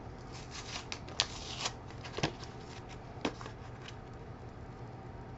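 Trading cards being handled: a few soft rustles and several sharp clicks over the first three and a half seconds, then only a low steady hum.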